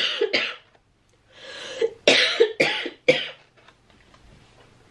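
A woman coughing: a sharp cough right at the start, then a breath in and a run of three coughs about two to three seconds in.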